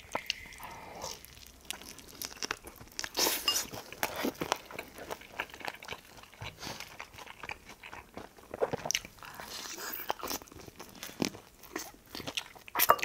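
Biting and chewing sauced Korean fried chicken (BBQ yangnyeom chicken): a run of irregular crisp crunches from the fried coating.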